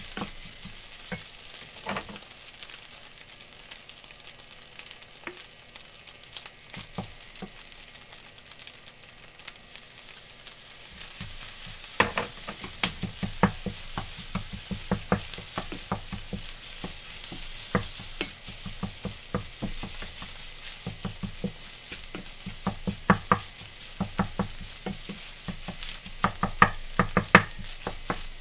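Fried rice sizzling in a metal frying pan while a wooden spatula stirs and tosses it, knocking and scraping against the pan. The knocks come thick and fast from about twelve seconds in.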